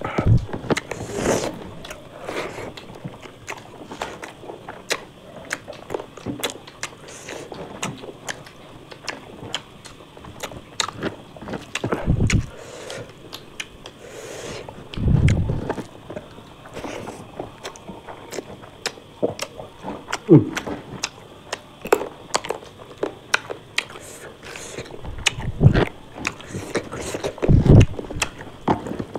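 A person eating close to the microphone: chewing and biting, with many small sharp clicks and crunches and a few louder low thuds.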